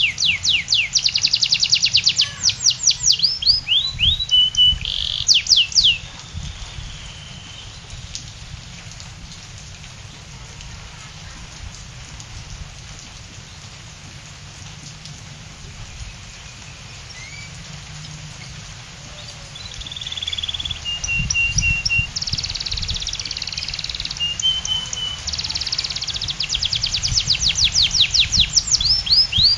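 Canary singing in fast runs of repeated down-sweeping whistles and short held trills. It stops about six seconds in and starts again about twenty seconds in, with only a faint steady hiss in between.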